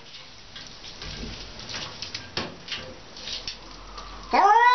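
A wet domestic cat held in a bathtub for a bath: soft water drips and splashes, then near the end a loud, drawn-out meow that rises sharply in pitch at its start.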